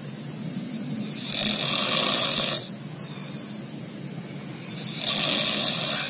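A sleeping man snoring through his nose: two long, noisy snores, the first starting about a second in and lasting about a second and a half, the second near the end, with quieter breathing between them.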